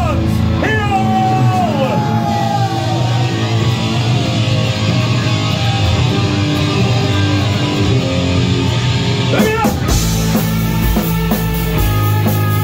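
Nu-metal band playing live: downtuned seven-string electric guitars, bass and drums, with notes sliding in pitch near the start and again shortly before the end. About ten seconds in, the full band comes in heavier with a deep, pounding low end.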